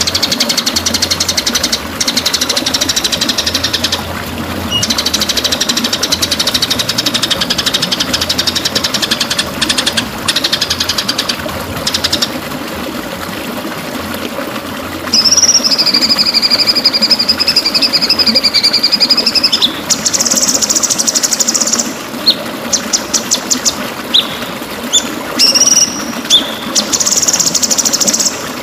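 White-rumped shama (murai batu) singing: long runs of rapid, high chattering trills, then a long drawn whistle about halfway through, then short sharp notes. Underneath is a steady rush of running water.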